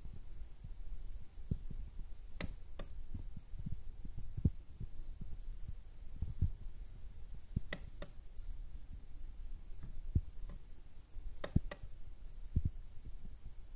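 Plastic DISPLAY button on a Voltcraft IPC-1L battery charger pressed three times, each press a pair of sharp clicks a few seconds apart. Underneath are a low hum and soft low thumps.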